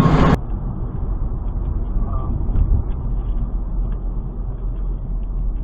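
A loud pitched sound cuts off sharply about half a second in. It gives way to the steady low road-and-engine rumble inside a moving car, as picked up by a dashcam's microphone, with faint voices under it.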